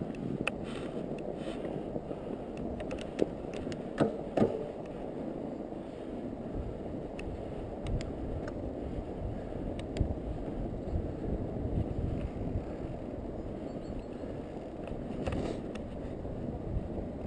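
Fat bike rolling over snow: a steady low rumble of the wide tyres, with a few sharp knocks about three to four seconds in and light clicks scattered through.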